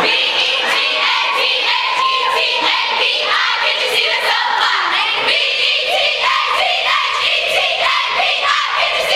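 A large group of young women singing together loudly, their voices changing pitch note to note without a break.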